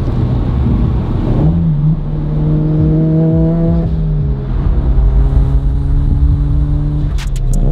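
Turbocharged Subaru BRZ's flat-four engine heard from inside the cabin while driving. The engine note rises briefly about a second and a half in, then holds steady.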